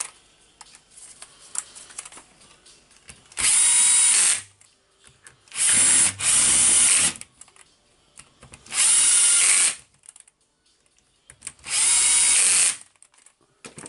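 Cordless drill-driver running in four bursts of about a second each, a few seconds apart, driving the four small screws of a rotary hammer's gear cover; each burst is a steady motor whine. Faint handling clicks fall between the bursts.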